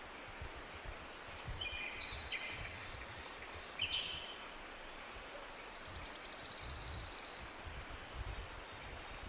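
Birds calling over steady outdoor background noise: a few short chirps, then a buzzy, rapidly pulsed trill lasting about two seconds past the middle.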